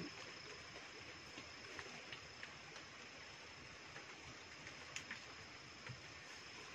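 Faint night ambience: a steady high-pitched drone of night insects over a soft hiss, with a few scattered light ticks.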